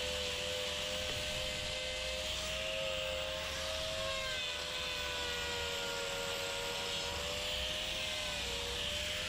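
Electric angle grinder with a hoof-trimming disc, running steadily and grinding down the horn of a cow's claw. Its motor whine dips slightly in pitch now and then as the disc is pressed into the hoof.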